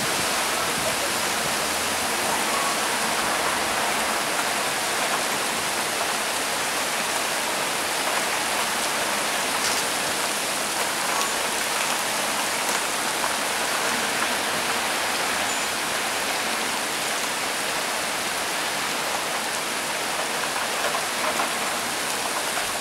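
Cloudburst: heavy rain pouring down in a steady, even hiss.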